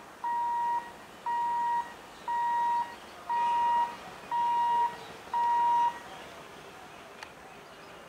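An electronic beeper sounds a steady high tone in half-second beeps about once a second, six times, growing slightly louder, then stops about six seconds in. A single sharp click follows near the end.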